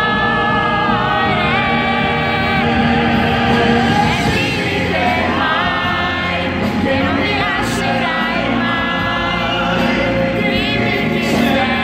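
Male operatic pop voices singing long held notes with vibrato over a live symphony orchestra.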